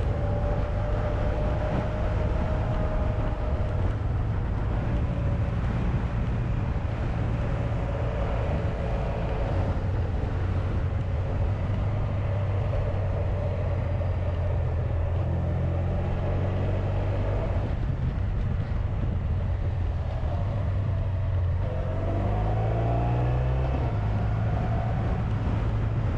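Honda VFR1200X Crosstourer's V4 engine running at a steady pace on the move, with wind noise over it. About three-quarters of the way through, the engine note climbs for a couple of seconds.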